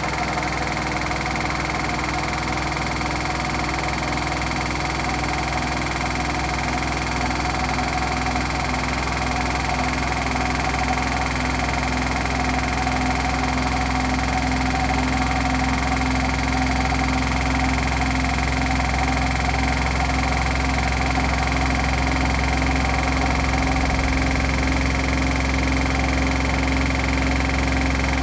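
Hotpoint washing machine on its final spin, drum spinning at speed with a steady rumbling hum and several held tones that grow slightly louder; the noise is the sign of worn drum bearings.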